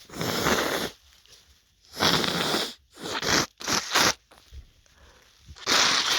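A person blowing his nose hard several times, a series of noisy blasts each under a second long, his nose congested from a dust allergy.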